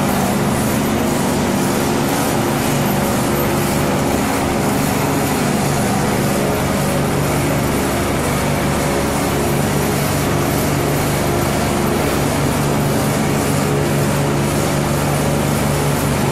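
Walk-behind laser screed's engine running steadily at a constant pitch as the machine screeds wet concrete.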